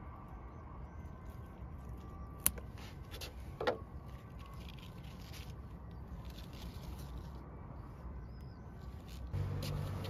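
Steady low outdoor rumble of distant traffic, with two short sharp clicks about two and a half and three and a half seconds in. A louder low engine hum comes in near the end.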